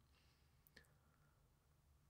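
Near silence: room tone, with one faint click a little under a second in.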